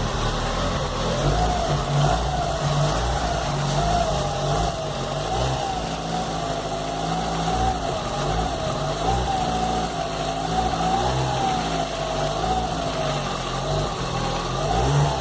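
Volkswagen Gol G4 engine running at idle, with a wavering whine that rises and falls about once a second over the steady engine hum: the strange engine noise the owner is asking about.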